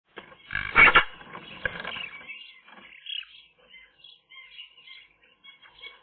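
Twigs rustling and knocking in a Eurasian magpie's stick nest as the bird lands in it, loudest about a second in with a second, smaller rustle just after. Faint chirps of other birds follow.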